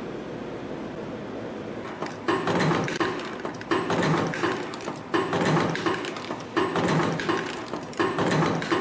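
CNC spring-forming machine running steadily, then about two seconds in starting to cycle, forming one torsion spring about every second and a half. Each cycle is a sharp click followed by about a second of servo-motor whine and further clicks as the wire is fed and bent.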